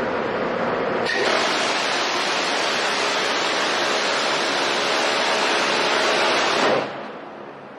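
Phalanx CIWS's 20 mm M61 Vulcan six-barrel Gatling cannon firing one continuous burst of about six seconds, starting about a second in and cutting off sharply near the end. Its very high rate of fire runs the shots together into one unbroken rasp. Before the burst there is a steady rushing noise.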